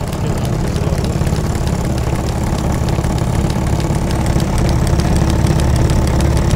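Small live-steam model stationary engine with a brass boiler, driving model machines through spring-belt line shafting, running with a fast, regular ticking that quickens after about four seconds. A steady low engine drone sits underneath.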